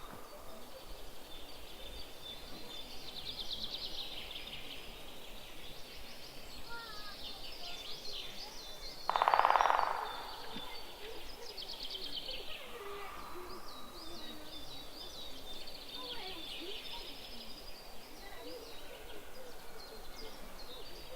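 Several wild birds chirping and trilling in woodland. About nine seconds in comes a single louder, harsh buzzy sound lasting about a second.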